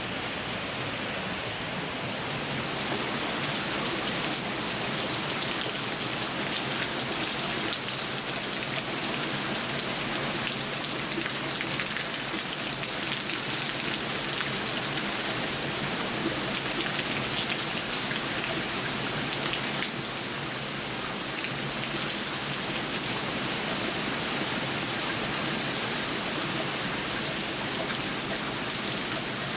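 Heavy rain pouring down in a steady, dense hiss, growing heavier about two seconds in.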